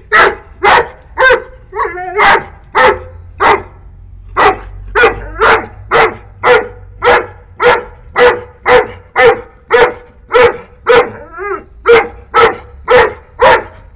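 A nine-month-old Saint Bernard puppy barking loudly and repeatedly at a cat, about two sharp barks a second with hardly a pause.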